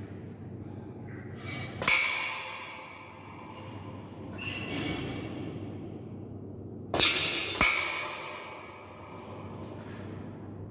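Weihrauch HW100 pre-charged pneumatic air rifle firing .177 pellets: three sharp shots, one about two seconds in and two more about half a second apart near seven seconds, each trailing a short echo off the walls of an indoor range.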